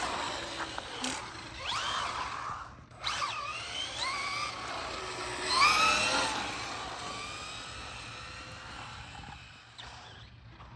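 Brushless electric motor of a 1/10-scale RC rally car (Traxxas Velineon VXL) whining upward in pitch in three bursts of acceleration, the third the loudest, then fading away as the car drives off.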